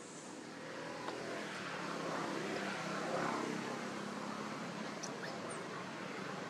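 A passing motor vehicle, its engine and road noise growing louder over the first three seconds and then holding steady.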